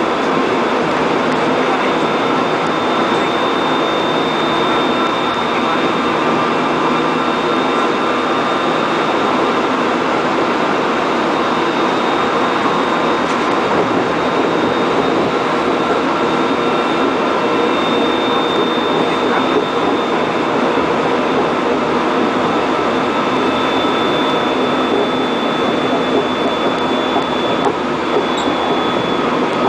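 Steady running noise inside a Korail 311000-series electric subway car travelling at speed: a continuous rumble of wheels on rail, with a thin, steady high whine over it.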